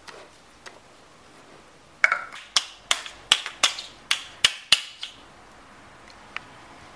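A small round jar knocked and clicked in a toddler's hands: a quick, irregular run of about nine sharp clicks and taps lasting under three seconds, starting about two seconds in.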